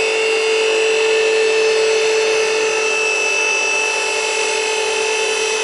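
Electric hydraulic pump motor of a car lift running steadily with a constant whine as it raises the car.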